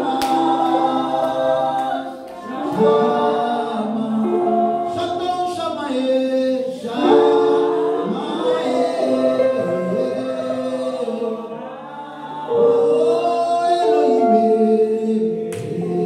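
Gospel praise song sung into a microphone by a male worship leader. The melody comes in phrases of held notes, with short breaks every few seconds.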